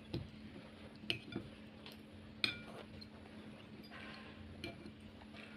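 Metal fork clinking and scraping on a ceramic plate as a pancake is cut, a handful of sharp clinks with the loudest about two and a half seconds in.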